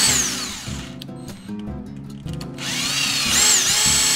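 Cordless drill/driver running in bursts: a whine that rises and drops off at the start, then after about two and a half seconds it spins up again and holds a steady high whine.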